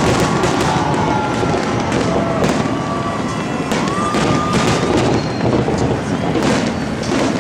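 Fireworks going off in quick succession, many sharp bangs and crackles one after another, with people's voices underneath.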